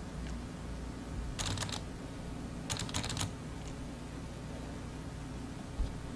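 Small plastic clicks and rattles from handling a mechanical keyboard and its pulled switch: two short clusters of clicks, about a second and a half in and again about three seconds in, and a dull thump near the end.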